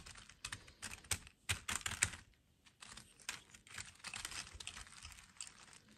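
Small plastic dolls being handled on a wooden tabletop: irregular light clicks and taps as they are knocked together and set down, thickest in the first two seconds, then softer ticks with a faint rustle of their plastic dresses.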